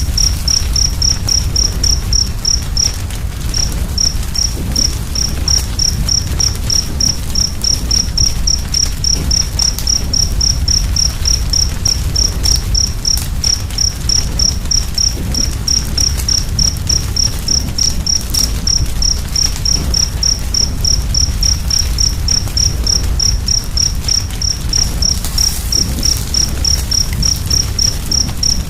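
A cricket chirping in a steady, even rhythm of about four high chirps a second, pausing briefly about three seconds in, over the low rumble and faint crackle of a wood fire.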